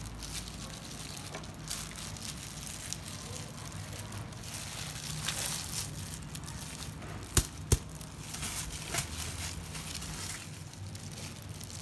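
Salad being mixed by hand in a plastic bowl: the plastic food glove crinkles and the leaves and shredded banana flower rustle. Two sharp clicks come close together about two-thirds of the way in.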